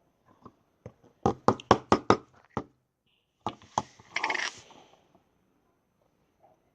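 Clear slime being pressed and stretched by hand, giving a quick run of sharp clicking pops, then a short crackling squelch a little past four seconds in.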